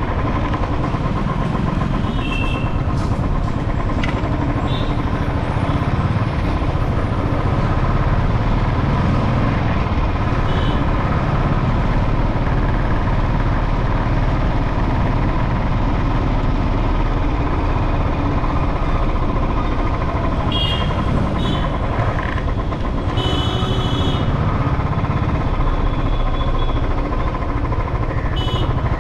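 Motorcycle riding in traffic: steady engine and road noise. A few short high-pitched tones sound over it, most of them about two-thirds of the way through.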